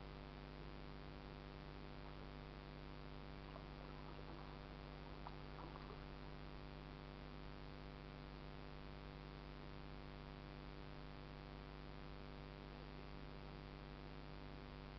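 Steady low electrical hum with hiss, the recording's own noise floor, unchanging throughout, with a few faint short sounds about four to six seconds in.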